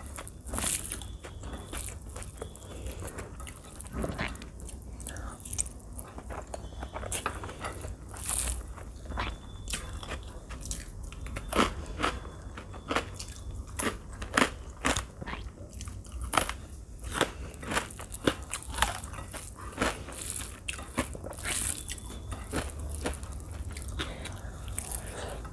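Close-miked eating sounds: chewing of rice and chicken curry eaten by hand, with many sharp crunches from bites of fried papad, most frequent and loudest through the middle.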